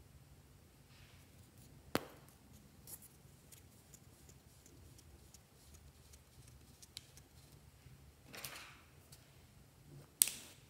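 Quiet handling of a plastic lip balm tube, with a sharp click about two seconds in as its cap comes off. Near the end, scissors snip through the lip balm stick with one sharp cut.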